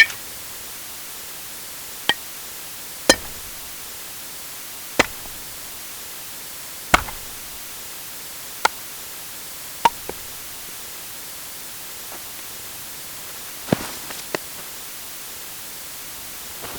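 Baseball impact sound effects: a string of single sharp hits, about ten in all, spaced a second or two apart, some ringing briefly and a few deeper and heavier, over a steady hiss.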